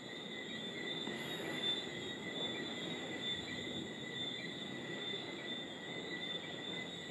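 Chorus of night insects: steady high-pitched trilling at several pitches over a steady low rush of background noise.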